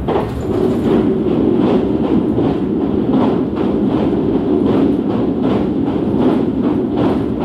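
Limited express train running at speed, heard inside the passenger car: a steady loud rumble with rapid, regular clicking of the wheels over the rails.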